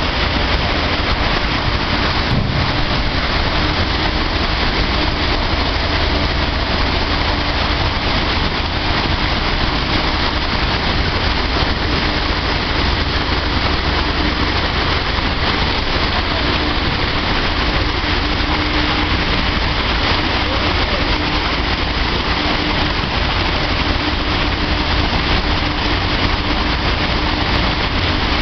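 A dryer running steadily: a loud, even rush of noise with a constant low hum underneath.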